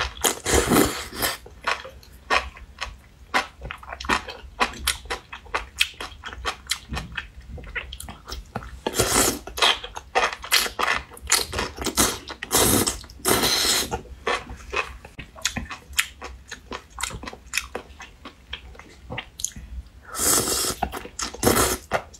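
Close-up mouth sounds of a person eating enoki mushrooms in spicy red broth: rapid wet chewing clicks throughout, broken by three long slurps of the strands, about nine seconds in, about thirteen seconds in and near the end.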